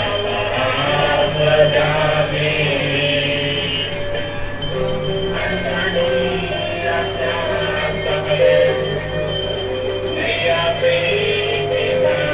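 Devotional aarti music: a melody of held, stepping notes over continuous jingling and ringing of bells.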